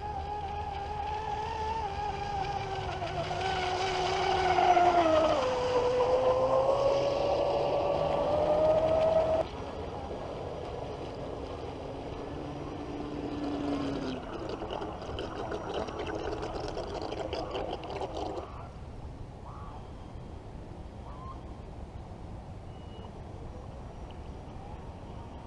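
Traxxas M41 Widebody RC boat's brushless electric motor whining at speed, its pitch dropping as the boat passes about five seconds in. The sound falls off sharply about nine seconds in and runs lower until it stops about eighteen seconds in, leaving only a faint hiss.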